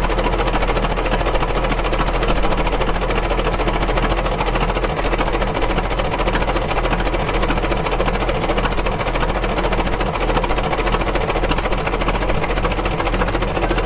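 Antique engine running steadily with a rapid, even beat.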